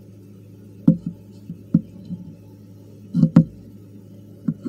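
A handful of dull knocks and bumps, typical of a phone being handled against a tarantula enclosure, over a low steady hum. The loudest come about a second in and as a quick pair a little past three seconds.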